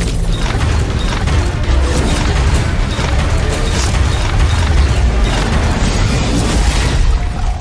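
Dramatic soundtrack music mixed with loud crashing and booming impact effects, with heavy bass throughout.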